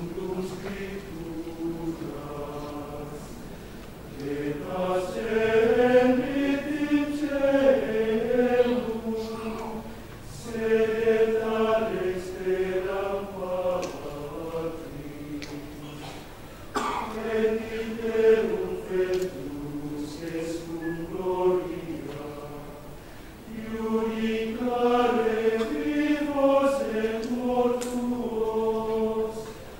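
Men's choir singing Gregorian chant unaccompanied, the melody rising and falling in long phrases with short breaks between them.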